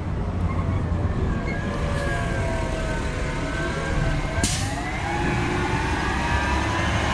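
An emergency vehicle siren wailing, its pitch slowly rising and falling, over a low rumble of engines. A short, sharp hiss comes about halfway through.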